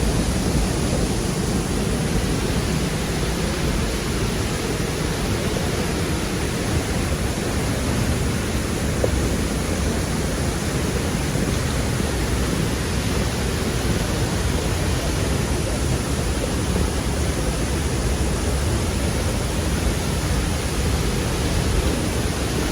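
Steady rush of a waterfall and river, a loud, even roar of water.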